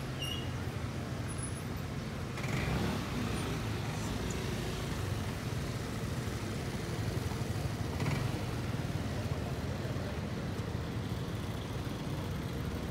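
Steady hum of road traffic in a town street, with brief louder swells, likely passing vehicles, about two and a half seconds in and again around eight seconds in.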